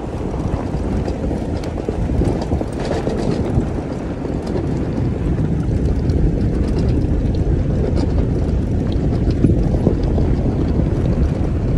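Pickup truck rolling slowly over a rocky dirt trail: a steady low rumble of engine and tyres on gravel, with wind buffeting the microphone and scattered small knocks and rattles.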